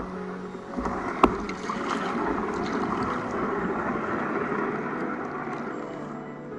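A canoe's hull knocks once sharply, about a second in, then grinds and scrapes over a log lying across the river, with a steady rough rushing that eases near the end.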